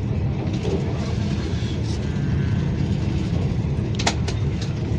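Steady low running rumble of a Vande Bharat Express electric train at speed, heard from inside a passenger coach. A couple of short clicks come about four seconds in.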